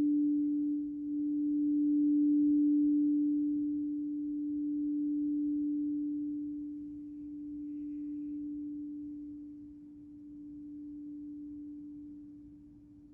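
Crystal singing bowl ringing on one low, pure tone that swells and ebbs in slow waves every few seconds while gradually fading.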